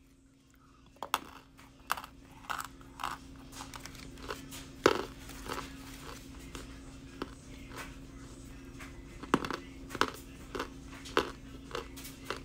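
A brick of compressed cornstarch being bitten and chewed close to the microphone: irregular sharp crunches starting about a second in, loudest about five seconds in and again between nine and eleven seconds, over a steady low hum.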